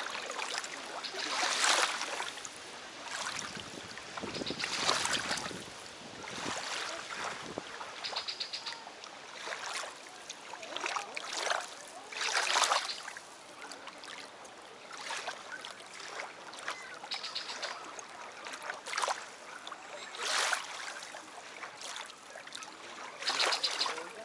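Small lake waves lapping and washing onto a sand-and-pebble shore, in irregular surges every second or two. Some surges carry a quick rattle of fine ticks.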